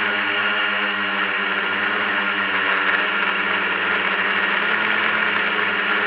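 Multirotor drone's electric motors and propellers whirring steadily in flight, heard close up from the drone's own camera: a constant hum under a high hiss.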